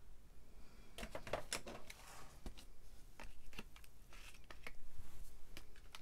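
Oil pastel sticks clicking and rattling against each other and their tray as a hand picks through the box, a run of small, irregular clicks starting about a second in.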